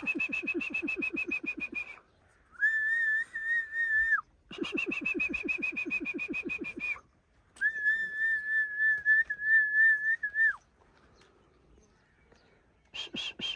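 A person whistling: long steady whistled notes alternate with fast trilled whistles, each lasting about two to three seconds with short pauses between. One steady note falls away at its end, followed by a quieter lull of about two seconds before the trilled whistle starts again near the end.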